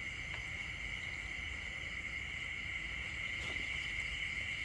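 Night insect chorus, crickets trilling steadily at two high pitches without a break, with a few faint ticks.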